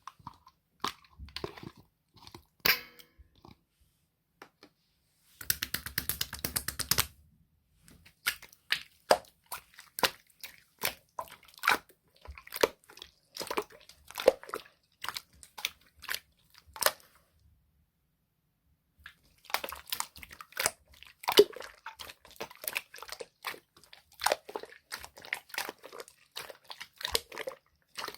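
Purple clear slime being squished, poked and stretched by hand, giving sharp crackling pops and clicks from trapped air, at times in quick dense runs, with short pauses between handfuls.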